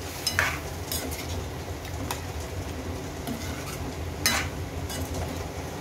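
A steel spoon stirring soaked kidney beans into thick masala gravy in a stainless steel pan, with wet scraping and a few clinks against the pan; the loudest clink comes about four seconds in. A steady low hum runs underneath.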